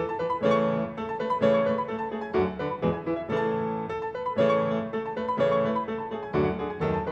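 Background piano music: a keyboard melody with notes struck at a regular pace.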